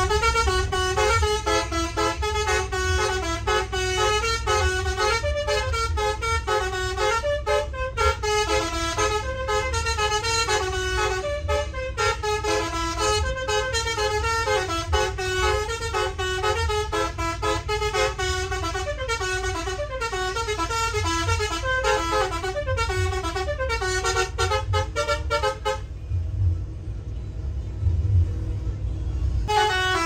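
Basuri telolet bus horn playing a quick tune of shifting multi-trumpet horn notes over the low running of the bus engine. The tune breaks off a few seconds before the end, then starts again.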